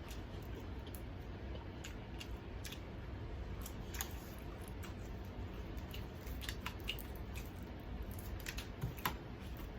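Close-up chewing of crispy fried chicken: irregular crunches and wet mouth clicks, a few of them sharper, one about four seconds in and a couple near nine seconds.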